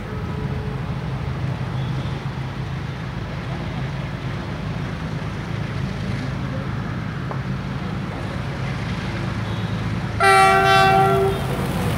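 An approaching locomotive sounds its horn once near the end, a single loud chord lasting just over a second, over a steady low rumble.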